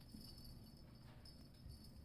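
Near silence: faint room tone with light rustling of kittens playing with a feather wand toy on a rug.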